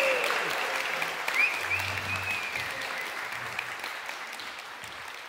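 Small audience applauding, the clapping gradually fading away.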